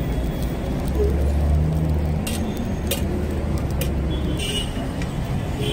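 Road traffic running past: a low rumble that swells about a second in and eases off after about four seconds. A few sharp clicks come in the middle, and a short high tone sounds near the end.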